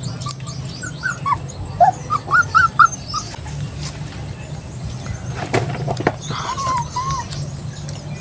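An animal's short squeaky calls, a quick run of about eight in the first three seconds and two more about two-thirds of the way in, over a steady high whine.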